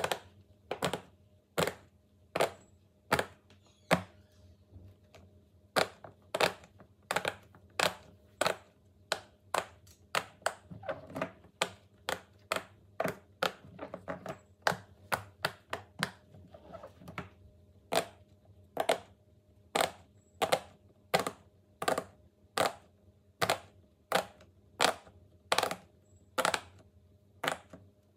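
Bubbles of a silicone pop-it fidget toy being pressed one after another with fingers, a steady series of short, sharp pops about two a second.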